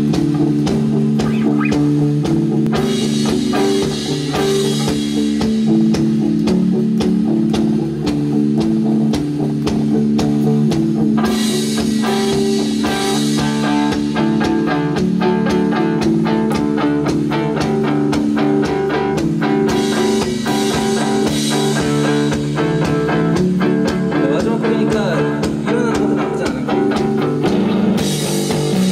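Live rock band playing: electric guitar, bass guitar and drum kit, with the cymbals heavier in stretches of several seconds.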